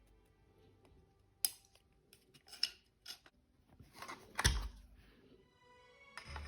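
Sharp metallic clicks of AR-15 rifle parts being handled, with a single louder metal clack and thump about four and a half seconds in.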